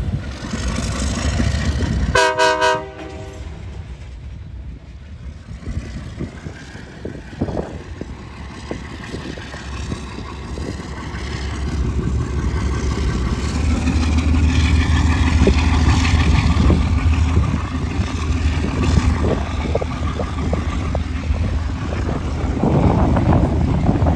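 Alco C420 diesel locomotive's horn sounds one short blast about two seconds in. Then a string of freight hopper cars rolls past with a low rumble and clicking wheels over the rail joints, growing louder in the second half as the cars pass close.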